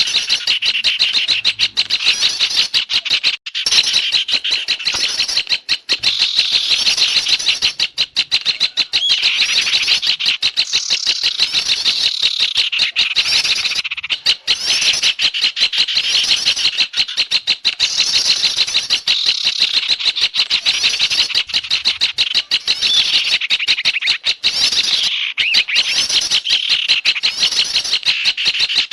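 Dense, unbroken chatter of many small songbirds calling at once: rapid high chirps and short trills layered over one another. It is a bird-lure mix of garden birds, played to draw small birds in.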